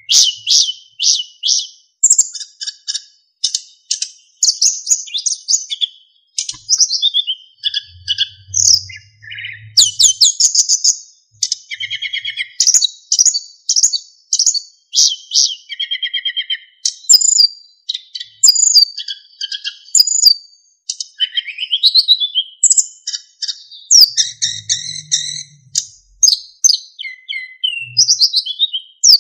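Sikatan emas, a small flycatcher, singing without pause: rapid high chirps, fast trills and clear flute-like whistles in quick, varied phrases.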